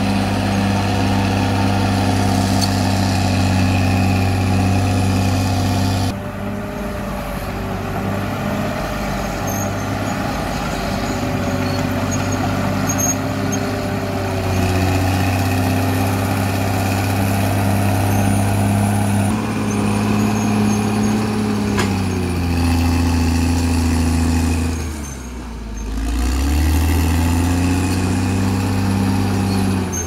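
Diesel engine of a Caterpillar D6R XL crawler bulldozer running steadily at working revs. Late on, the engine note sinks and quiets for a moment, then climbs back up.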